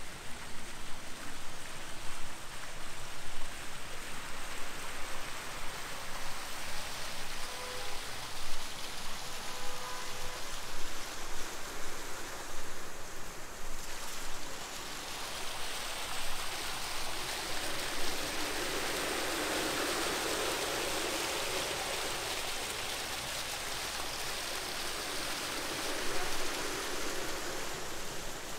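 Steady rushing water noise that swells louder for about ten seconds after the middle, then eases.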